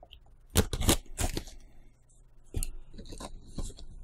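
Brown packing tape being picked at and torn from a cardboard box, in a few short rips with pauses between them.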